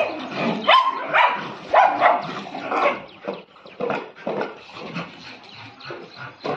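A pack of dogs barking and yelping in play, a rapid run of short overlapping calls that is loudest and densest in the first three seconds and thins out after.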